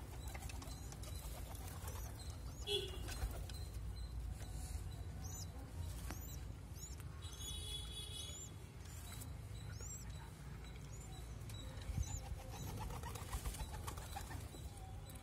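Pigeon squab giving short, high-pitched begging squeaks, about two a second, while being fed by its parent, over a steady low rumble.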